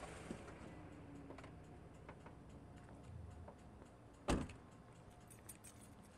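A single loud, dull thump about four seconds in, over faint hiss and a few soft clicks.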